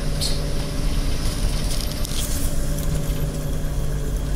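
Cabin noise inside a Toyota Coaster minibus driving downhill: a steady engine and tyre drone with a few light rattles and clinks.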